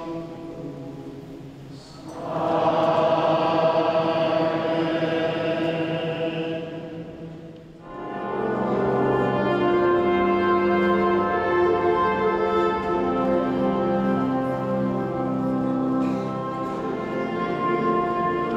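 A choir sings a long held chord that fades away; about eight seconds in, a brass band starts playing a stately tune with full chords.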